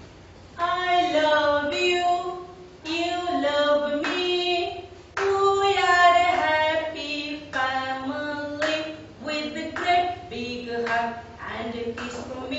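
A woman singing a song alone and unaccompanied, in short phrases of held notes that step up and down.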